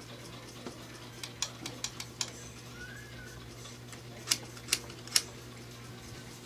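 Coins dropped into the top of a homemade ballpen vending machine: a run of small clicks, then three sharper, louder clicks about half a second apart.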